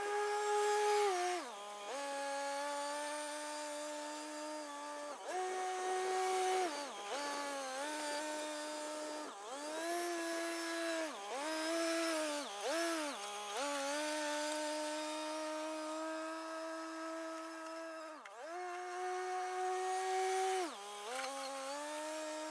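Kioti CK3510SE compact tractor working a box blade back and forth over gravel, running with a steady whining drone. Its pitch dips briefly every few seconds and settles at a slightly different level each time.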